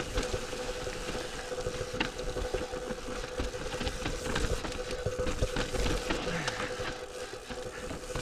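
Mountain bike riding down rocky dirt singletrack: tyres rolling over dirt and rock, with frequent clicks and rattles from the bike, under a steady faint whine.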